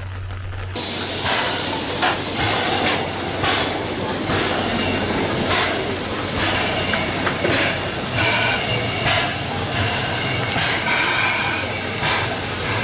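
C11-class steam tank locomotive moving slowly with its cylinder drain cocks open: steam hissing out by the wheels, with repeated chuffs roughly once or twice a second. It gets suddenly louder about a second in.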